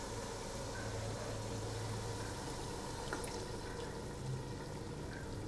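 Tomato-onion masala simmering with a low, steady bubbling in a pot on a low flame, as yogurt is added; a faint tap about three seconds in. A steady low hum underneath.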